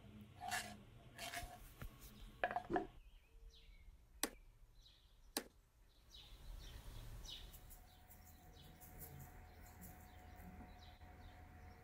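Quiet kitchen handling: a few soft knocks and two sharp clicks in the first half as chopped cilantro is tipped into a ceramic bowl of diced onion and tomato, then faint bird chirps in the background.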